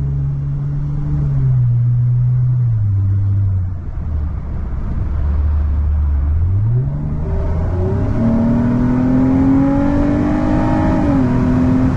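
2011 Lexus ES350's 2GR-FE V6 engine: revs falling and holding low for a few seconds, then climbing steeply from about six and a half seconds in under hard acceleration and rising steadily, with a brief dip in revs near the end.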